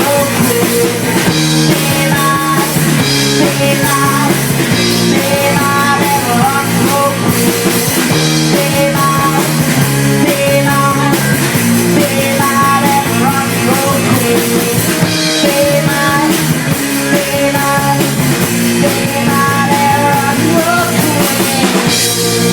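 Rock band playing loud, with drums, bass and a melodic lead line over a steady beat and little or no singing.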